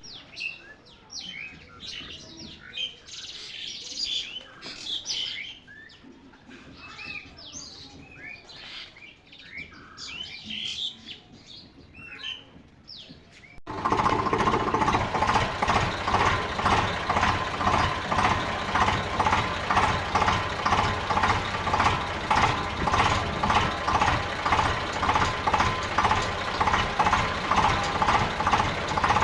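Birds chirping for about the first half, then a sudden cut to a loud, steady engine running with a regular pulsing beat.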